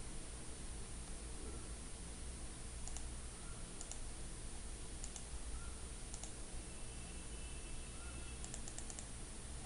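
Faint computer mouse clicks: single clicks a second or so apart, then a quick run of several near the end, over a steady low hiss.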